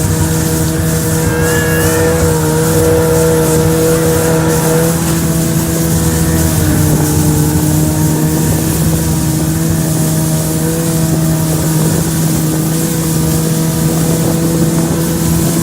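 Snowmobile engine running steadily at an even cruising speed, heard up close while under way, with a rough rushing noise of travel over snow underneath.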